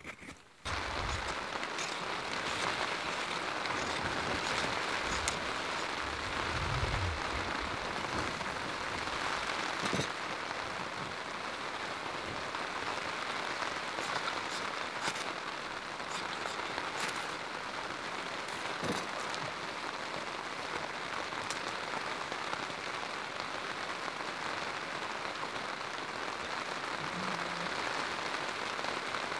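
Steady rain falling, starting abruptly about a second in, with a few sharp ticks through it.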